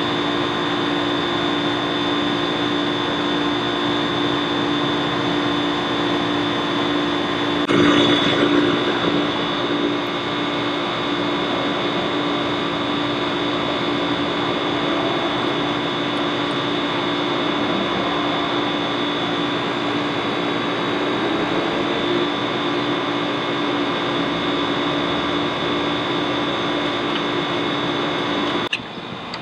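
A steady mechanical drone made of several fixed tones over a noisy hum, briefly louder about eight seconds in, cutting off just before the end.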